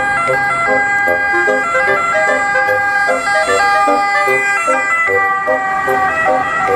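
Electronic ambulance siren sound, mixed with a busy jingle of quick stepping notes.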